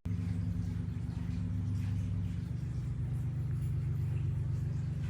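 Baby bouncer seat's battery-powered vibration unit running: a steady low buzzing hum.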